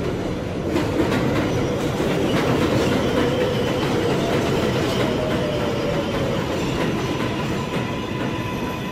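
NYC Subway R188 train pulling into an elevated station, a steady rumble with its wheels clattering over rail joints. A tone falls in pitch around the middle, and a thin steady whine comes in near the end.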